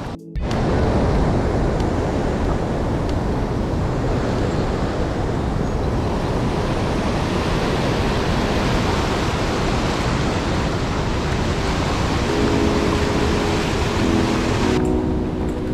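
Steady, loud rush of water pouring over a small stone weir into a stream pool, heard close up. Background music with held notes comes in about twelve seconds in, and the water sound drops away shortly before the end.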